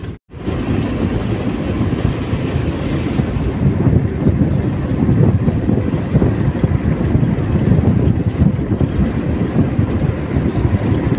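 Steady rumble and wind noise of a moving vehicle, heard from inside through its open side window. The sound cuts out briefly just after the start.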